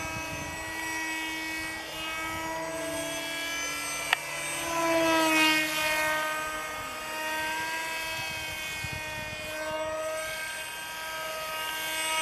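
Radio-controlled F-22 model plane's motor and propeller whining in flight, a steady pitched drone that swells and glides up then down in pitch about five seconds in as the model passes close. A single sharp click about four seconds in.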